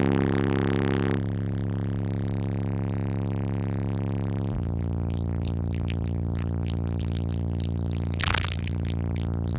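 Deep sustained sub-bass notes from two 18-inch Soundqubed HDX3 subwoofers playing a bass-boosted track at full volume, heard as a steady buzzing drone. It changes note about halfway through and is broken briefly by a noisy smear near the end.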